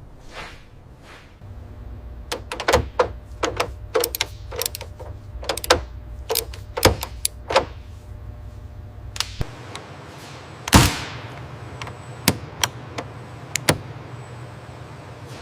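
A run of sharp, irregular clicks and knocks, several a second, over a low steady hum. The hum drops out about two-thirds of the way through. Then comes a short, louder hissing burst, followed by a few single clicks.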